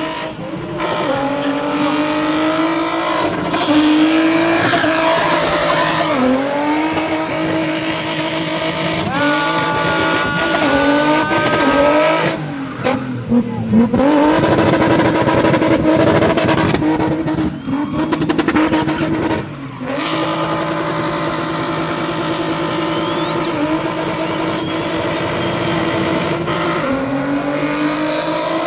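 Toyota Cressida's swapped-in Nissan VQ35DE 3.5-litre V6 held at high revs in a spinning burnout, with the rear tyres spinning and squealing. The revs sag and pick up again several times, with brief drops a little before halfway and about two-thirds of the way through.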